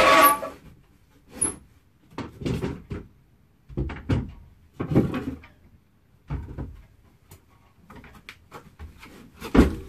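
Wooden knocks and clatters as a sailboat's companionway drop boards are lifted out of the hatch, then feet on the wooden companionway ladder, with a heavy thump near the end as someone steps down into the cabin.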